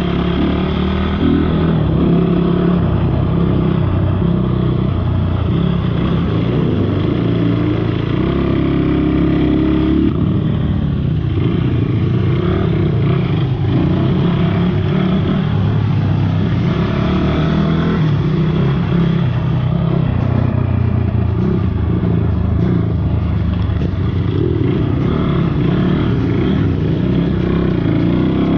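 Motorcycle engine running under way, its revs rising and falling with the throttle.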